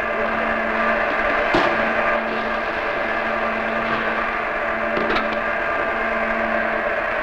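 Steady hum of factory machinery, several held tones droning together, broken by a light knock about a second and a half in and a couple more about five seconds in.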